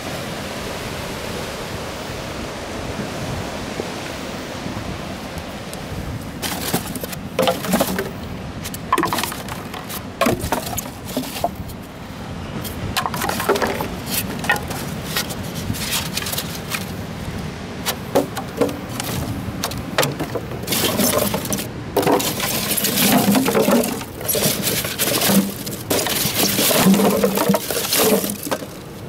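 Surf and wind noise on the microphone, then from about six seconds in, repeated close crackling and clattering as washed-up plastic bottles and weathered polystyrene foam are handled and pushed about, busiest near the end.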